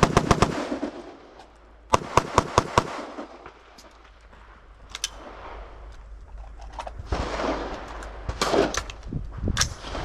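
A rapid string of rifle shots right at the start, then about two seconds in five quick pistol shots about a fifth of a second apart: a rifle-to-pistol transition. Later comes a click and the clatter and rustle of the gun being handled.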